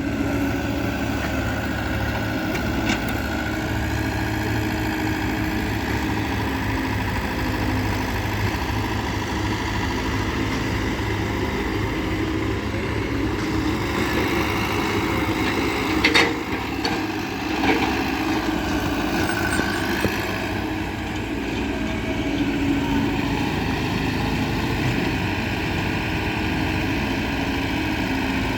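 Heavy diesel engine running steadily, with a couple of short sharp knocks about halfway through.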